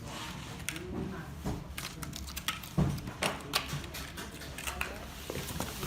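Scattered clicks and light knocks of PC hardware being handled, over a steady low hum.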